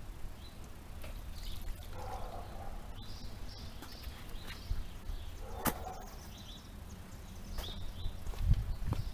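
Faint bird chirps scattered over steady outdoor background noise, with a single sharp click a little past halfway.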